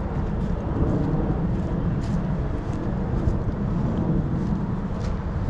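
Steady low rumble of distant interstate traffic, with faint light clicks scattered through it.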